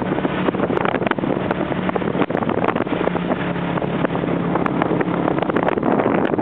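Small motorcycle engine running at a steady speed, heard from the pillion seat, with wind buffeting the microphone and scattered clicks and knocks throughout.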